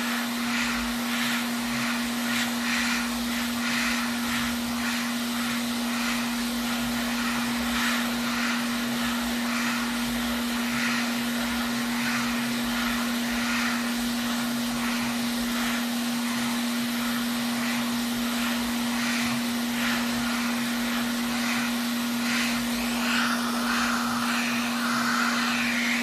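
Steady fan-like blowing noise with a constant low hum, from electric bench equipment running during soldering work on a PS5 board.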